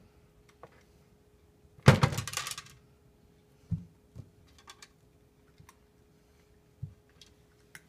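A cat knocking about at a plastic automatic pet feeder: a loud thump with a short rattle about two seconds in, then a few soft knocks and light clicks as it works at the feeder's tray.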